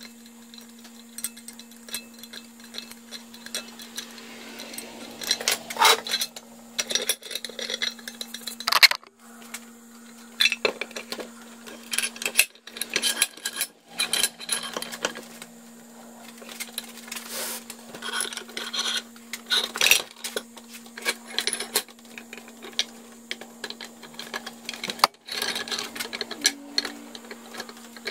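Restored forged bench vise being worked: its handle is turned and the movable jaw and slide are run out, giving irregular metallic clicks, clinks and knocks, with a steady low hum underneath.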